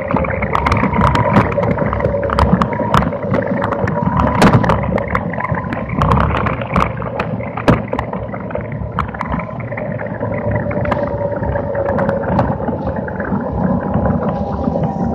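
Onboard sound of a small electric race car running on a wet track: a steady whine from the electric motor and drive over tyre hiss and water noise, broken by frequent sharp rattles and knocks from the chassis.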